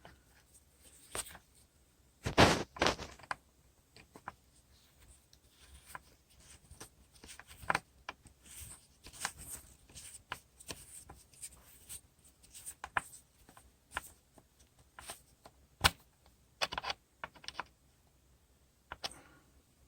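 Hands handling and fitting small parts, a screw and washers on a plastic fuel-door hinge: scattered irregular clicks and light scrapes, with a louder clatter about two and a half seconds in and a sharp click near sixteen seconds.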